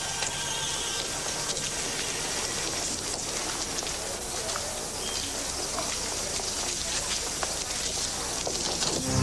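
Street ambience of a busy square: a steady hum of distant voices with scattered light clops of horse and mule hooves on cobblestones.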